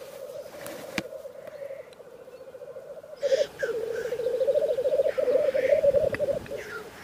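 Lekking male black grouse: a continuous low bubbling, cooing song, growing louder from about three seconds in, with a few harsh hissing calls over it.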